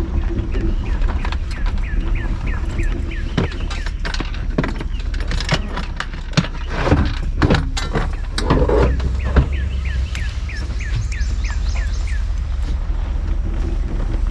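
A bird singing a quick series of repeated down-slurred chirps, about three a second, in two runs, one early and one near the end. Over a steady low rumble, with several sharp knocks and clatters in the middle.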